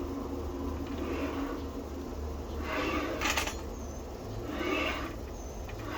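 Sliding miter saw head pushed back and forth along its rails: a few swelling rubbing sweeps, each a second or less, with light clicks.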